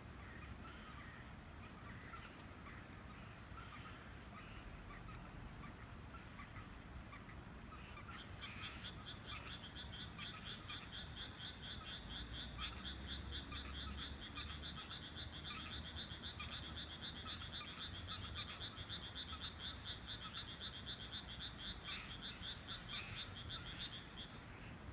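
A chorus of frogs calling from a rice paddy at night, many short calls overlapping. About a third of the way in, one caller starts a rapid, continuous pulsing call that runs until shortly before the end, over a faint high-pitched rapid pulsing in the background.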